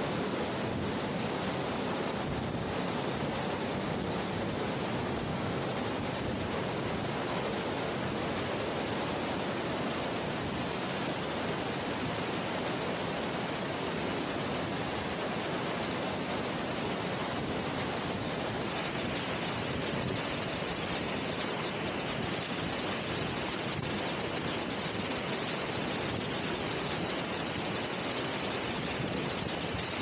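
Steady rushing of a waterfall: an even, unbroken wash of falling water.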